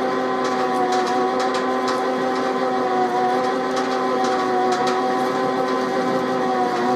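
Metal-turning lathe running steadily with an even whine, with scattered light ticks from the cut.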